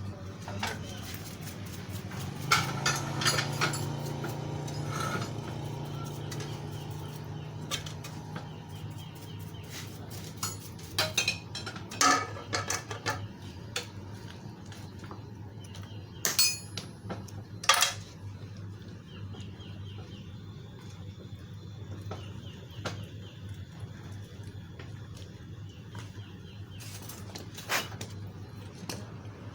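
Small metal carburetor parts from a grass-cutting machine being handled and set down during cleaning, giving scattered clicks and clinks over a steady low hum.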